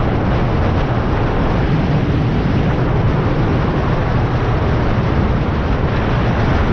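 Wind rushing over the microphone of a center-console boat running across open water, over the engine and hull noise. The noise is loud and steady, heaviest in the low end.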